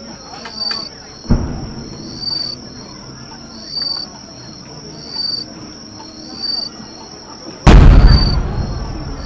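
Aerial firework shells bursting: a sharp bang about a second in, then a much louder boom near the end that rumbles away slowly. Insects chirp in a regular rhythm, about once every second and a half.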